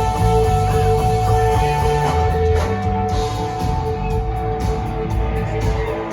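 A live jam band playing: electric guitar holding long sustained notes over a steady bass line.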